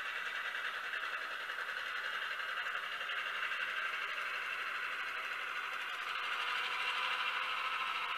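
HO-scale model diesel switcher locomotive running along the track: a thin, steady running sound with no low end, getting a little louder near the end.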